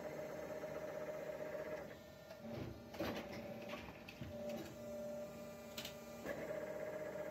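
Injection molding machine running with a steady mechanical hum. About two seconds in the hum drops to a lower pitch as the injection unit moves along its stroke, with a couple of sharp clicks. The higher hum returns shortly before the end.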